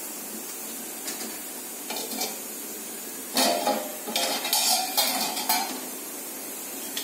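Stainless steel pot lid and steel ladle clinking and scraping as the lid is lifted off the pot, several sharp clanks with a short ring, loudest about halfway through; a steady hiss runs underneath.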